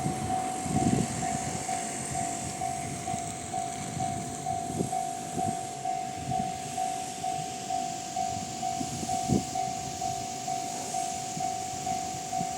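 Level-crossing warning alarm ringing, a single electronic tone repeating rapidly and evenly: the "Tohoku"-type alarm sound common at JR East crossings in the Tohoku region. It sounds over the low rumble of a train, which is loudest near the start.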